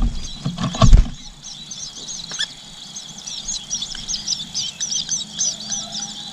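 Nestling birds chirping without a break, short high-pitched begging calls several times a second. A brief low rustling thump comes near one second in.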